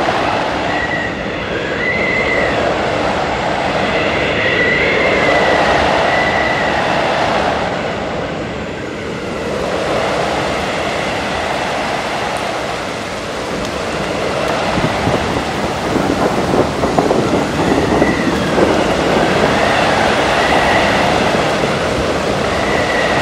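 Strong wind blowing in gusts, swelling and easing over several seconds, with a thin whistle coming and going over the rushing noise.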